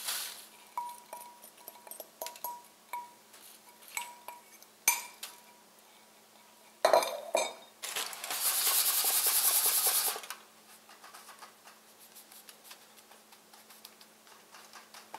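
A metal spoon clinks and scrapes against a glass mixing bowl as a graham-cracker crumb crust mixture is scraped out. About seven seconds in comes a louder stretch of crinkling lasting a few seconds as aluminium foil lining the pan is handled, then faint rustling as the crumbs are pressed into the foil-lined pan.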